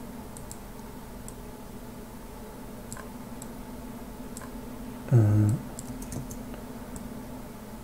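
Light, scattered computer keyboard and mouse clicks over a steady low hum, with one brief vocal sound from the man about five seconds in.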